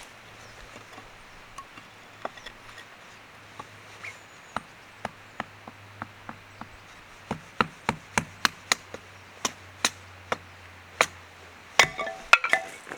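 A series of sharp knocks, sparse at first, then a quick run of about two or three a second through the second half, with a short flurry near the end.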